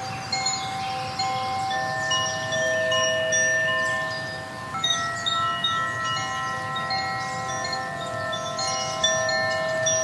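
Wind chimes ringing: many clear metal tones at different pitches, struck one after another and left to ring on, overlapping into a gentle shimmer.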